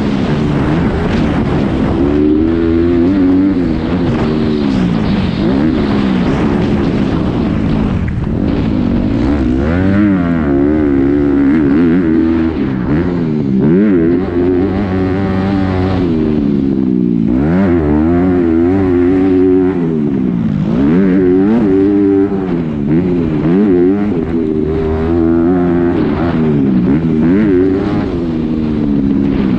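Honda motocross dirt bike engine revving hard and rolling off over and over, its pitch climbing and dropping every second or two through the shifts, corners and jumps, with wind rushing over the microphone.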